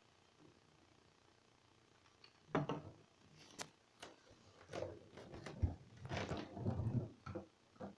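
Hamster's clear plastic exercise ball rolling and bumping on the bottom of an empty bathtub. It is quiet at first, then there are a couple of single knocks, followed by about three seconds of uneven rolling and clattering in the second half.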